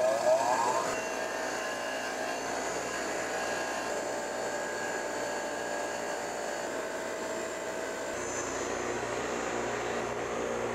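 Atwin AGF 6000 150 mm bench grinder motor coming up to speed with a rising whine that levels off about a second in, then running steadily while a diesel injector's carbon-covered tip is held against the wheel to brush the carbon off.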